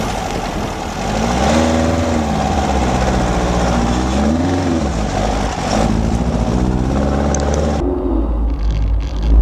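A Volkswagen Baja Bug's air-cooled flat-four engine running hard off-road, its revs rising and falling again and again. About eight seconds in, this gives way to a deeper, muffled rumble.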